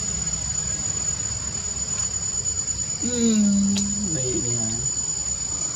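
Steady high-pitched insect drone, with a low background hum underneath. About three seconds in, a short low voice-like sound is held for a moment, then wavers and fades.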